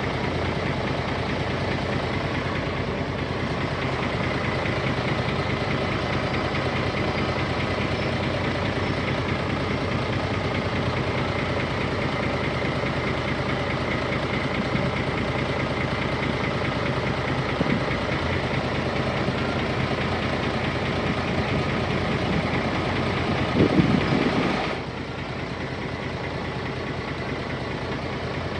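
Diesel engine of heavy earthmoving machinery running steadily, with a brief louder surge about 24 seconds in, after which the sound is a little quieter and duller.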